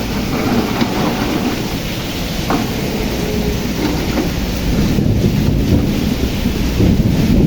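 Heavy rain pouring down with the deep rumble of an excavator working underneath, a steady dense noise that grows a little louder about five seconds in.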